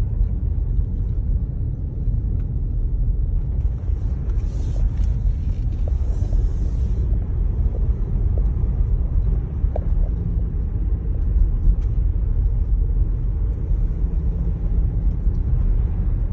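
Steady low rumble of a Jeep Grand Cherokee SUV driving on a snow-covered road, heard from inside the cabin: tyre and road noise with the engine underneath. A brief higher hiss comes in about four seconds in and lasts a few seconds.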